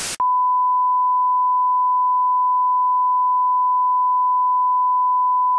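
Test-pattern tone: one steady, pure beep held unbroken for over five seconds, coming in just after a hiss of static stops abruptly. It marks the video cutting out.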